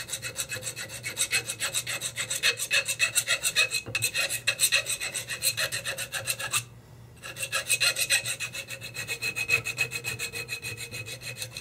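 Hand file rasping in rapid, even strokes on the end of a steel barrel sleeve, trimming it back where the bolt face rotates. The strokes break off briefly a little past halfway, then resume.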